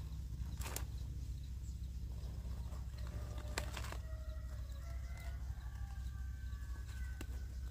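Outdoor ambience with a steady low rumble and a few sharp clicks. From about three seconds in comes a faint, drawn-out bird call that holds for several seconds, like a distant rooster.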